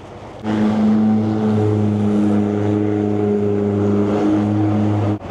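Turbo diesel longtail boat engine running loud at steady revs, holding one pitch. It starts suddenly about half a second in and cuts off abruptly just before the end.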